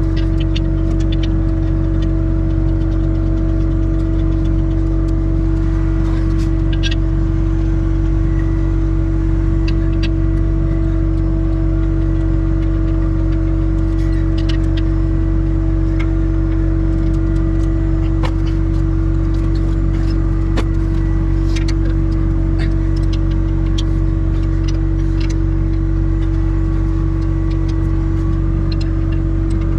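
Skid steer engine idling steadily, a constant drone with a steady humming tone over it. Short metallic clicks and taps from bolts and hand tools on the steel table legs are scattered through it.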